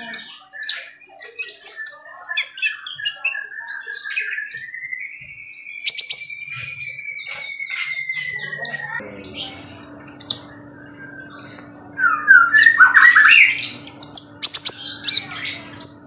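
Small caged songbird calling with rapid, sharp, high chirps, over a long thin whistle that slides up and back down in the first half. A steady hum comes in about nine seconds in, and a quick burst of louder, falling song notes follows a few seconds later.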